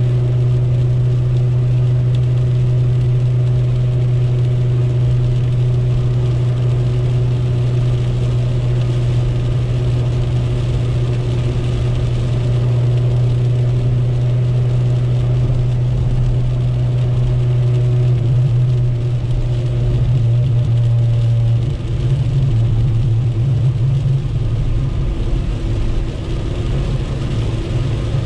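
1997 Chevrolet Corsa Wind's four-cylinder engine droning steadily at highway cruise, heard inside the cabin over wet-road and rain noise. In the last third the drone turns unsteady, with a couple of brief dips in level.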